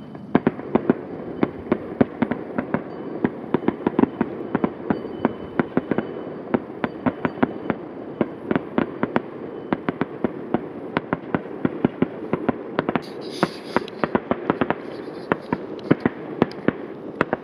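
Fireworks display: a rapid, irregular string of bangs and cracks, several a second, over a continuous rumble of distant bursts, with a brief hiss about two-thirds of the way through.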